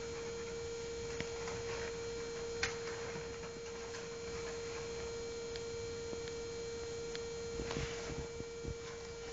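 Steady electrical hum with a few scattered light clicks and taps, the sharpest about two and a half seconds in, and some soft rustling near the end.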